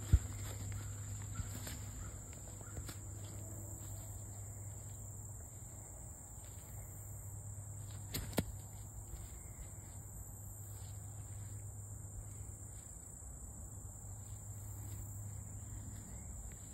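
Steady high-pitched drone of insects chirring in a grassy field, over a low steady hum. A sharp knock comes right at the start and a smaller one about eight seconds in.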